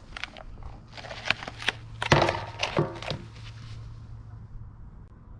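Handling noise as a camera is reset: a series of knocks and thunks, the loudest about two seconds in, over a low steady hum.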